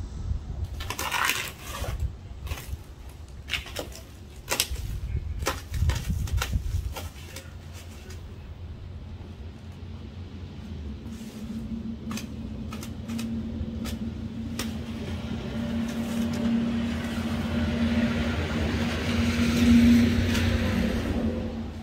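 Plastic stretch wrap being slit and torn off a pallet: a run of sharp crackles and snaps over the first several seconds. Then a vehicle engine hum with a steady tone builds, loudest just before the end.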